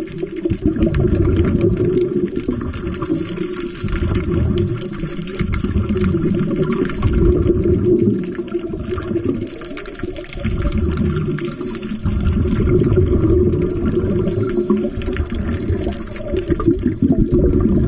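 Scuba diver's exhaled bubbles from the regulator, recorded underwater: a muffled, low bubbling rush that swells and eases in surges every few seconds with the breathing.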